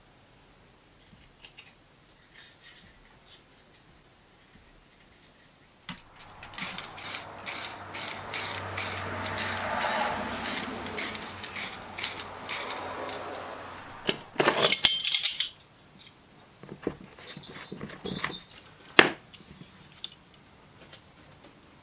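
Aerosol spray paint can: about eight seconds of quick rhythmic rattling with a hiss, then a louder spray burst lasting about a second. Afterward come faint scrapes and a single sharp click.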